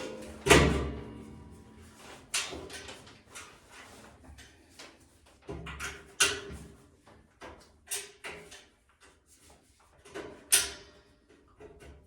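Steel rack parts knocking and clanking as they are handled and fitted together: one loud clank about half a second in, then scattered lighter knocks and clanks.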